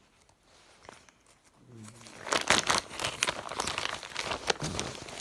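Clear plastic bag of a cross-stitch kit, with its paper instruction sheet, crinkling as it is handled. It starts about two seconds in, after a quiet start, and runs on as dense, sharp crackling with louder snaps.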